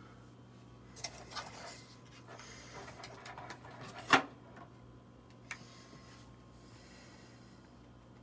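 Cardboard packaging being handled and opened, rustling and sliding in short spells, with one sharp snap about four seconds in and a smaller click a little later.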